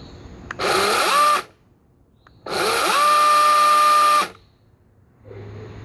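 Greenworks 40-volt brushless cordless chainsaw triggered with no load, its chain running free. First comes a short burst that rises in pitch. After a pause, a longer run of under two seconds climbs to a steady high whine and then stops.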